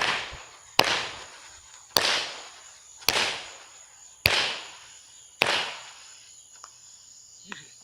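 Fireworks going off: six sharp bangs about a second apart, each fading out over about half a second. A steady high insect drone runs underneath.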